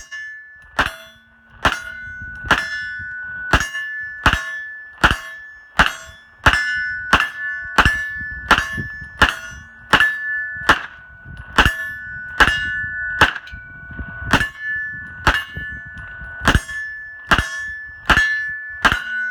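Slow, steady string of 9mm shots from a Colt-style AR9 pistol, a bit more than one a second for about two dozen rounds. A metallic ringing carries on between the shots, which fits a steel target being hit.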